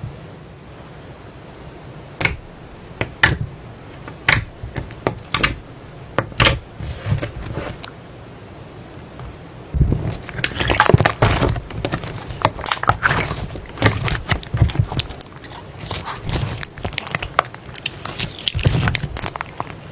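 Slime being squeezed and pressed by hand: a series of separate sharp pops and crackles, then about halfway through a denser run of crackling, squishing sounds.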